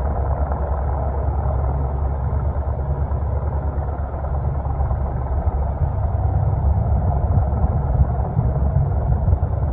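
Helicopter rotor and engine noise heard close by: a steady loud rumble with rapid low pulsing from the blades.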